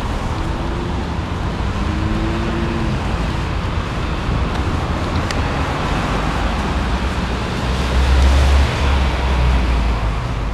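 Steady outdoor traffic noise, with a deeper rumble on the microphone for about a second, about eight seconds in.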